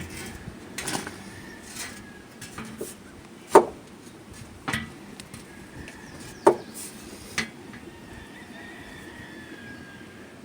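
A few sharp knocks and clatters of objects being handled and set down, with two louder knocks about three and a half and six and a half seconds in.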